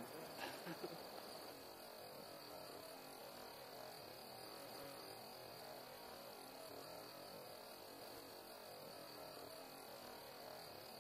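Near silence: a faint, steady, high-pitched trill of night insects over a low hiss.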